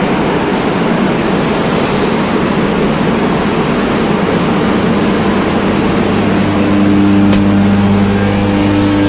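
Loud, steady machinery noise from a standing air-conditioned train. About six and a half seconds in, a steady low droning hum joins it, close up at the coach door.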